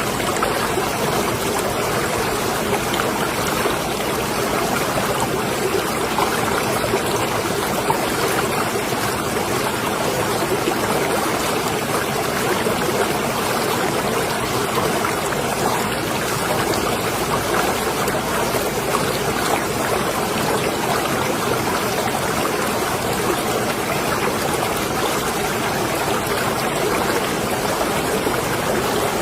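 Marina water lapping and splashing against moored boats, a steady wash of small trickling splashes.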